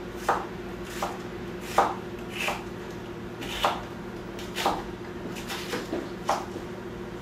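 Kitchen knife chopping an onion on a wooden cutting board: separate, uneven knocks of the blade on the board, about one a second.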